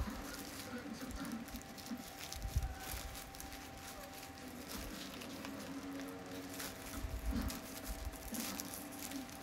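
Packaging of a phone case being handled: scattered rustling, scratching and small taps of cardboard and plastic, with a few low thumps on the table.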